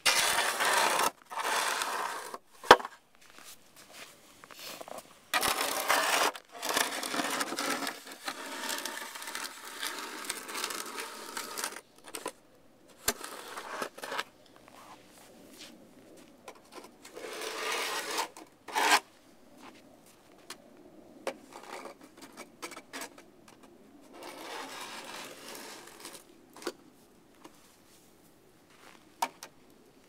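Snow shovel scraping and pushing through snow in irregular passes of a second to several seconds, with quieter gaps between them. A few sharp knocks, the loudest about three seconds in.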